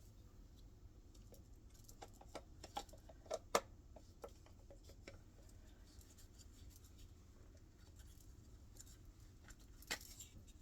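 Faint, scattered clicks and light knocks from parts of a washing machine drain pump being handled and fitted, with a sharper click about three and a half seconds in.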